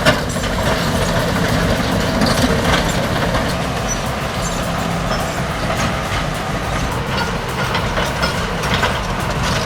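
Large crawler bulldozers' diesel engines running hard under load, with the clatter of steel tracks.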